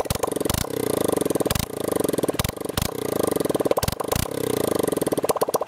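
Honda CBF125's fuel-injected 125 cc single-cylinder four-stroke engine running with no exhaust fitted, so the bare exhaust port is loud and open. It is revved in several short blips, with sharp cracks as each one breaks off, then drops back to a lumpy idle near the end.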